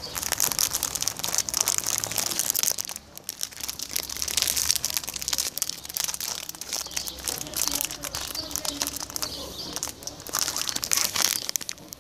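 A plastic bag crinkling and rustling as it is handled, a dense crackle with short breaks about three seconds in and near the end.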